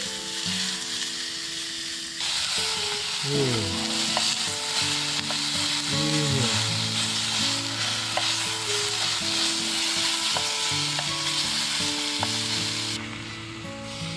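Sliced beef sizzling as it sears in a hot aluminium mess tin, moved about with chopsticks. The sizzle comes in loud about two seconds in and drops away near the end.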